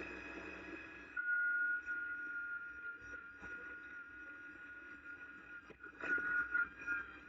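Kubota BX compact tractor running with a steady high whine over its engine, swelling louder about a second in and again near the end.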